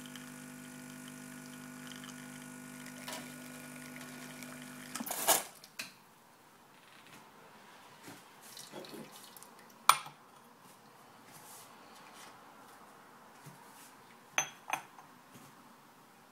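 Bezzera Magica espresso machine's pump humming steadily while the shot runs, cut off about five seconds in with a loud knock. After that, a few sharp clinks of a ceramic espresso cup on its saucer, with a pair close together near the end.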